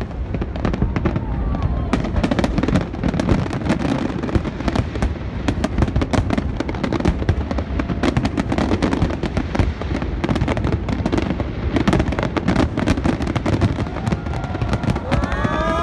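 Fireworks display going off without a break: rapid, dense cracks and pops of bursting shells over a steady low rumble.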